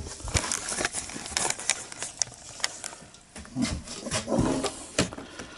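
Scattered clicks and knocks of a tin of paint being picked up and handled.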